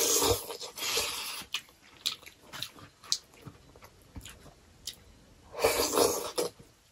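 Close-miked eating by hand: two louder bursts of mouth noise, at the start and again near the end, as a fingerful of rice and pork curry is taken into the mouth, with small chewing clicks in between.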